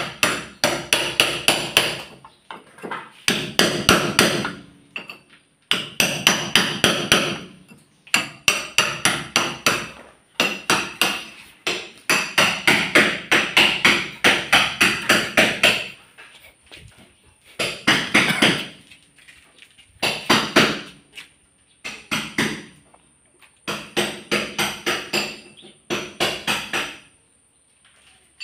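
Hammering in quick bursts of about five ringing blows a second, each burst lasting one to two seconds, with short pauses between.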